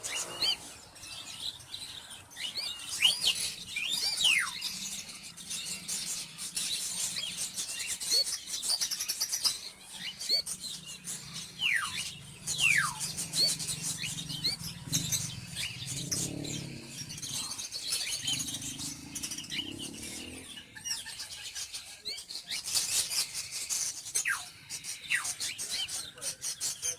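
Baby cockatiels giving raspy begging calls mixed with short falling chirps, the food-begging noise of chicks being hand-fed.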